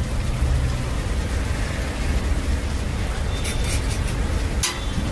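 Dosas sizzling on hot griddles, a steady hiss over a low rumble, with a few sharp clinks of a metal spatula on the griddle about three and a half seconds in and once more near the end.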